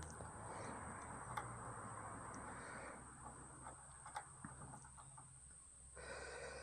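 Faint scattered clicks and ticks of small metal parts over a low steady hiss, as socket head cap screws are set by hand into a motorcycle bar riser's mounting holes.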